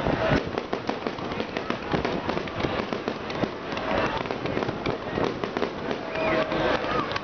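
Fireworks display going off continuously: a dense, rapid crackling and popping of bursting aerial shells, with no single big bang standing out.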